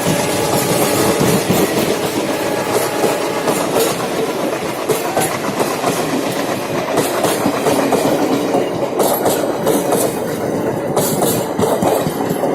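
Diesel-hauled passenger train behind a WDM-3D locomotive rolling past, a steady loud rumble with the wheels clattering over rail joints; from about seven seconds in the clicks of the wheels come through sharp and frequent.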